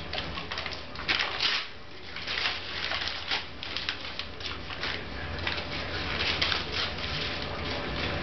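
Paper ripping and crinkling in irregular bursts as a small white terrier bites, tugs and tears at sheets held out by hand.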